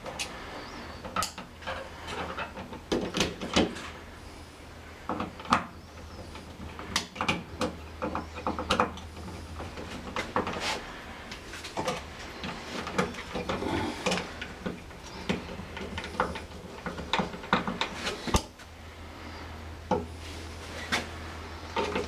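Irregular small clicks, taps and scrapes of hand-work on a wall light switch and its wiring, over a steady low hum.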